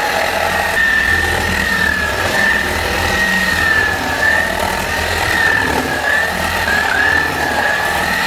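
Radio-controlled Mattel/Tyco Lightning McQueen toy car driving, its small electric drive motor whining steadily at a high pitch that wavers slightly as the car speeds up and slows, over a low hum.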